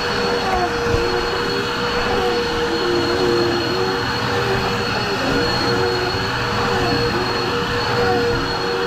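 Two Dirt Devil vacuum cleaners running at once: a steady motor whine over loud airflow noise, with a lower tone that wavers, dipping and recovering every second or so.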